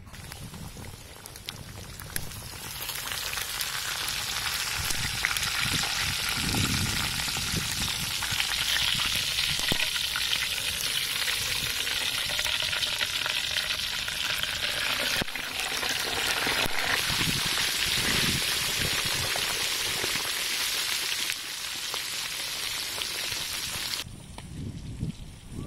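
Slab of pork belly deep-frying in hot oil in a wide steel pan: a dense, steady sizzle that starts about two to three seconds in and falls away near the end.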